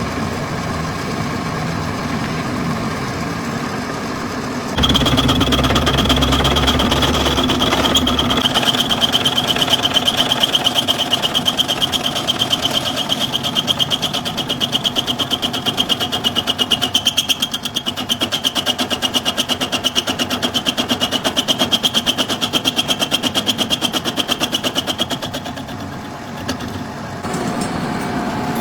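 A workshop machine running steadily with a high whine and a rapid even pulsing, getting clearly louder about five seconds in and easing off near the end.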